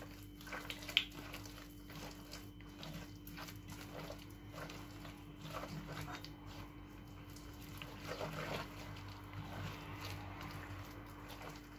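Hand mixing soft cookie batter of margarine, sugar, eggs and oil in a glazed clay bowl: irregular soft rubbing, squishing and light taps of fingers against the bowl, over a steady low hum.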